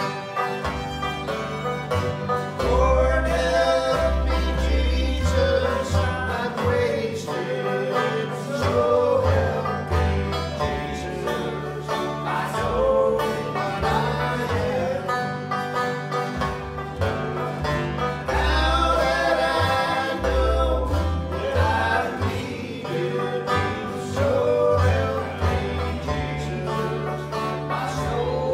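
Live acoustic string band playing a bluegrass-style tune over a pulsing bass line.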